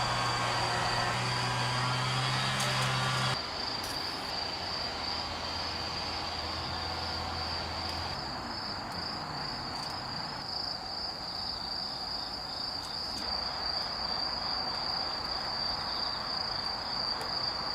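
A cricket trilling steadily, one high continuous song with a faint regular pulse. A low hum runs underneath for the first few seconds and cuts off abruptly.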